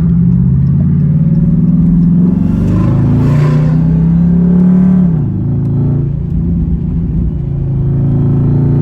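Dodge Hellcat's supercharged V8 running under hard acceleration, its pitch climbing over a couple of seconds, dropping suddenly about five seconds in, then building again near the end.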